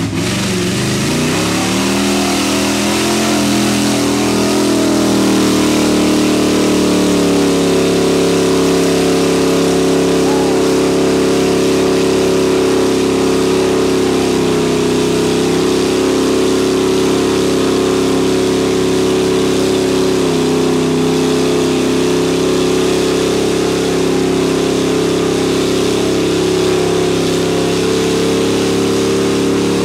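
Lifted Chevy pickup's engine revving up over the first several seconds and then held at high revs without letting off, as its 54-inch Boggers spin in a mud hole. The revs dip slightly about two-thirds of the way through.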